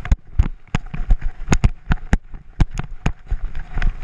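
Irregular sharp knocks and clinks, about three a second, from the gear on a moving dog's back: the harness-mounted camera and the dog's metal chain collar rattling with each step.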